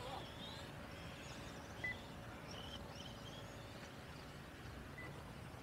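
Faint open-air background noise with a few short high chirps, and a thin steady hum over the first half.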